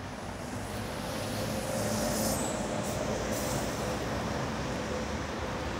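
Road traffic: a large motor vehicle passing, a steady rushing noise that swells about two seconds in, with a faint steady whine.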